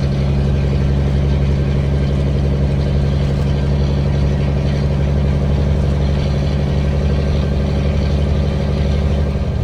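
Heavy diesel engine running at a steady speed: a low, even drone that does not change.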